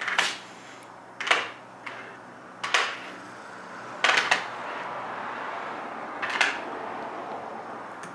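Metal hand tools being handled: sockets and a ratchet clinking and clattering in about five sharp knocks spread over several seconds.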